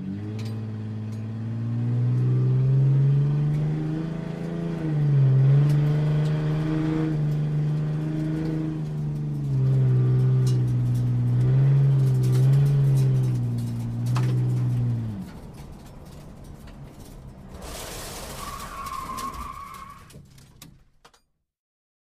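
Sports car engine running close by at low revs, its pitch rising and dipping several times, then dropping away about 15 seconds in. A quieter, noisier sound with a thin whine follows and stops about a second before the end.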